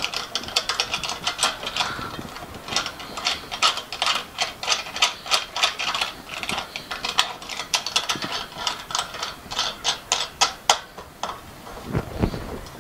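Quick run of light metallic clicks and rattles from fittings on the stainless steel lid of a Fansel 2 home autoclave being worked by hand. The clicking dies away about eleven seconds in.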